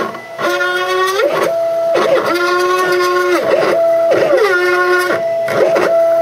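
Stepper motors of a home-built CNC router whining as they drive the X, Y and Z axes through a test drawing program. The whine holds one set of steady pitches for about a second, then slides to another, several times as the moves change speed and direction.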